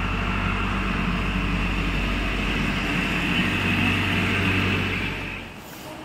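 Steady mechanical hum with a hiss over it, which drops away about five and a half seconds in.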